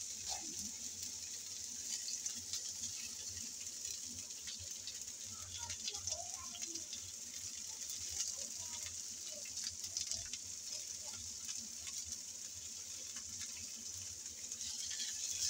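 Sliced onions and minced garlic sizzling in oil in a nonstick frying pan, a steady hiss dotted with small crackles, as a spatula stirs them.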